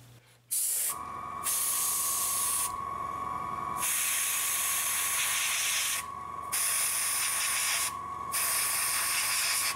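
Airbrush spraying thin coats of thinned white acrylic paint, hissing in repeated bursts of one to two seconds as the trigger is pressed and eased, over a steady high tone that starts about a second in.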